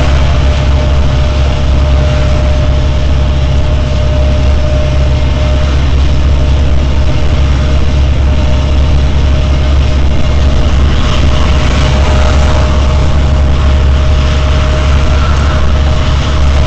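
Steady low rumble of a truck's engine and tyres at highway speed, heard from inside the cab, with a faint steady high tone over it.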